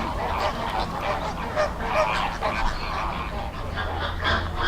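A flock of American flamingos honking: many short calls overlapping, several a second, in a dense chorus.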